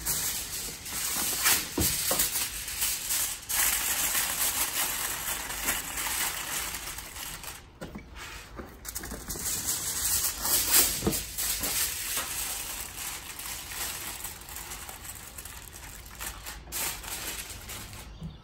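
Aluminium foil being crinkled and pressed down over a roasting tray, a continuous crackling rustle full of sharp little crackles.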